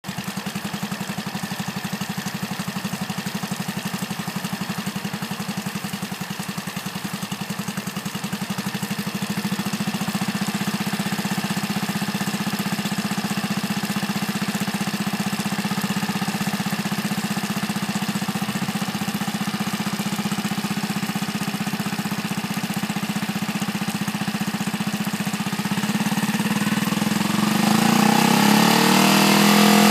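Mercury 6 hp outboard motor idling steadily while its throttle and idle are adjusted, then revving up near the end, its pitch rising.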